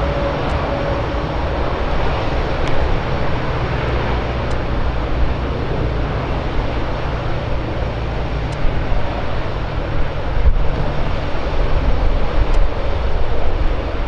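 Airbus A319 jet airliner taking off: twin jet engines running at take-off power in a loud, steady rumble. Wind buffets the microphone more in the last few seconds.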